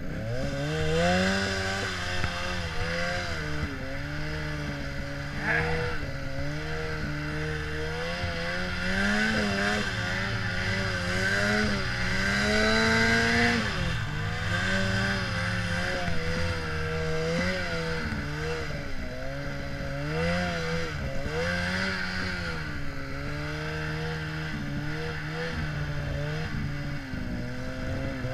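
Ski-Doo Summit snowmobile engine revving in deep powder, its pitch climbing and dropping every few seconds as the throttle is worked, with a steady hiss over it. The highest revs come about twelve seconds in, then fall off sharply.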